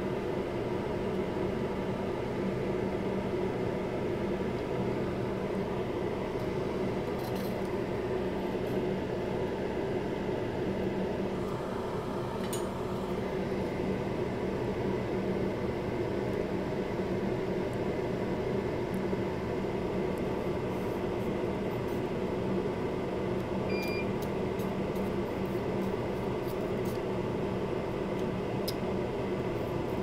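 A fan running with a steady hum, with a few faint clicks about halfway through and near the end.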